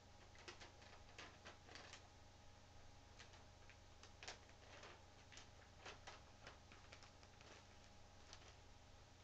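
Near silence: faint room tone with a steady low hum and scattered faint clicks at irregular intervals.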